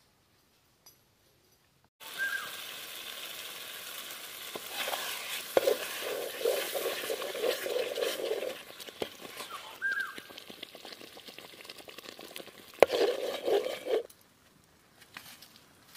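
Thick tomato-and-spice masala gravy sizzling in a black kadai while a perforated metal spatula stirs and scrapes through it, in bouts of quick strokes. This is the masala being fried down for crab curry. The sizzling starts about two seconds in and stops shortly before the end.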